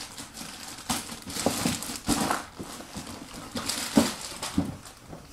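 Packaging being handled: crinkling and rustling with irregular knocks, the sharpest about four seconds in.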